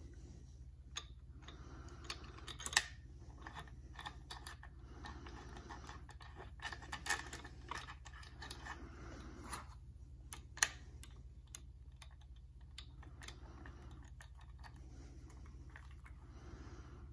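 Light clicks, taps and short scrapes of metal and plastic parts as a Hi-Point 995TS 9mm carbine is handled and reassembled, with a knurled threaded bolt fitted into the polymer stock. The sharpest clicks come about 3, 7 and 10 seconds in.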